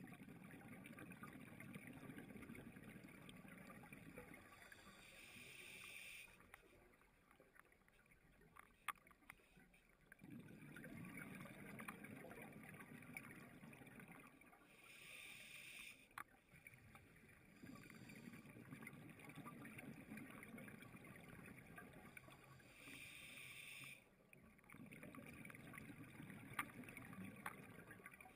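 Faint scuba breathing through a regulator underwater: long, low bubbling exhalations alternating with short hissing inhalations, about three breaths in all.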